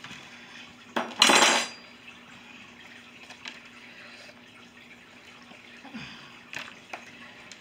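Plating food by hand: a metal serving spoon clatters loudly against the counter and plates about a second in, then a few light knocks and taps of food and utensils.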